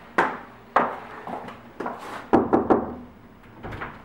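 Knuckles knocking on a wooden door: a few separate knocks, then a quick run of about four knocks a little past two seconds in.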